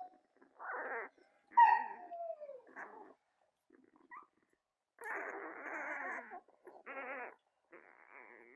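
Nine-day-old Labrador retriever puppies whimpering and squealing in short cries. The loudest is a falling squeal about a second and a half in, and a longer cry comes around five to six seconds.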